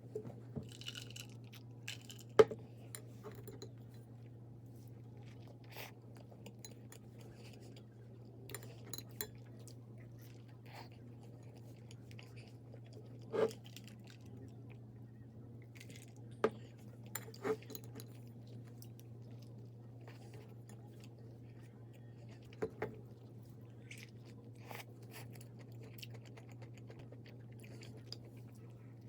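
A person eating: chewing and crunching food close to the microphone, with several sharp clicks of utensils against a dish, the loudest a few seconds in, over a steady low hum.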